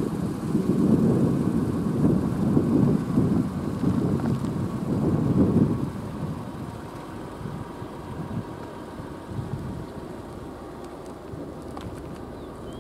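Low rumble of a squall-line thunderstorm with gusting wind, swelling several times over the first six seconds, then settling to a quieter, steady rumble.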